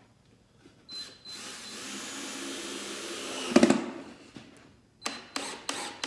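Power drill driving a drywall screw into a glued wooden box joint, its motor running steadily for about two and a half seconds and ending in a loud knock. A few sharp clicks and knocks follow near the end.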